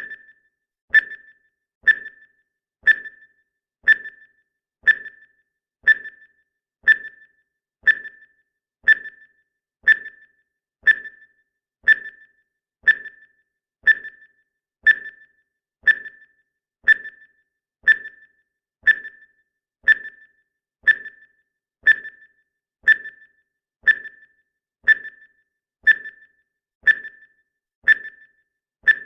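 Clock-ticking sound effect of a countdown timer: one sharp tick every second, each with a brief high ping.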